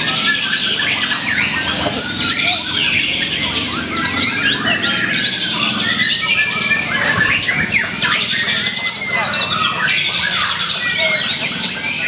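White-rumped shama (murai batu) singing a fast, varied song of whistles, trills and harsh notes that overlap densely without a pause.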